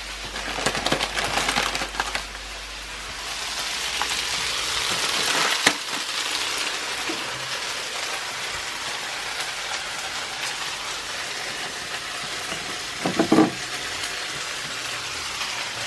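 Meat and vegetables sizzling in a frying pan as a steady hiss that swells for a few seconds, with a sharp knock about six seconds in and a few brief knocks about thirteen seconds in.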